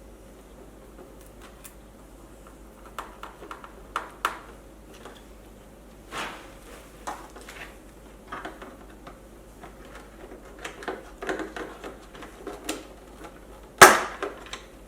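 Scattered clicks, taps and light rattles of hands working on an electric unicycle's parts and cable connectors during disassembly, with one sharp knock near the end.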